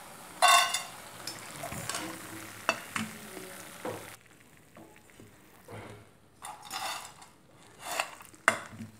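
Hot oil sizzling in a kadhai as fried gram-flour batter pieces are scooped out with a metal slotted spoon, with scrapes and taps of the spoon against the pan. About four seconds in the sizzling drops away, leaving separate scrapes and clinks of the spoon.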